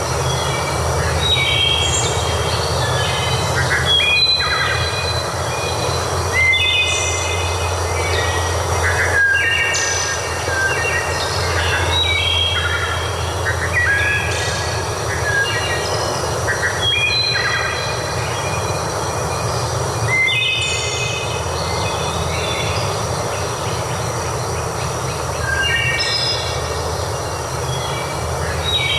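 Nature ambience: a steady rushing background with short pitched bird calls recurring every couple of seconds.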